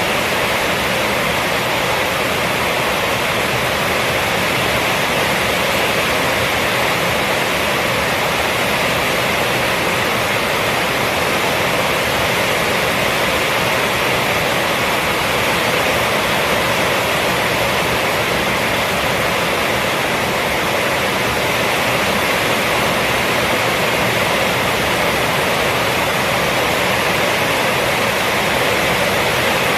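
Heavy rain falling steadily on a roof: a dense, even hiss with no breaks or single drops standing out.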